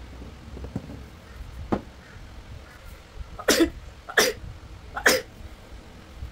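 Three short, sharp coughs, under a second apart, about halfway through; two fainter, similar short sounds come earlier.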